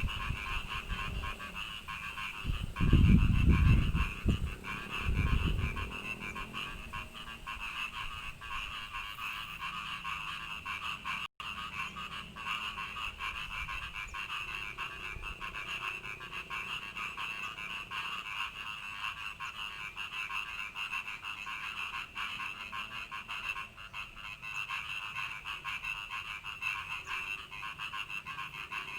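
Frogs calling continuously in rapid, pulsing trills that keep going without a break. A low rumble, the loudest sound, runs from about three to six seconds in.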